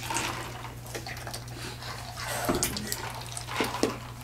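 Wet drinking and eating sounds close to the microphone: sips and slurps with scattered light clicks and mouth smacks, over a steady low hum.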